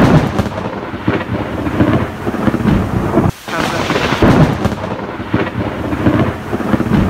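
Loud thunderclap rumbling over heavy rain, heard twice: the first cuts off suddenly about three seconds in and the same clap starts again straight after.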